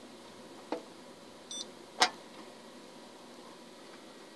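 Front-panel button of a Buffalo TeraStation NAS being pressed: two clicks and, between them, one short high electronic beep from the unit.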